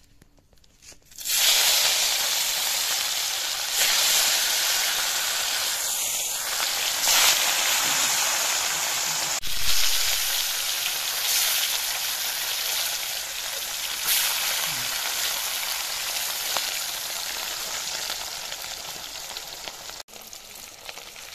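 Yellow spice-coated fish pieces sizzling as they deep-fry in hot oil in an iron kadai. The steady sizzle starts suddenly about a second in and drops off near the end.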